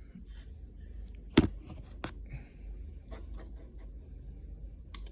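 A sharp click about a second and a half in, a softer click about half a second later, and a few faint ticks over a low steady hum.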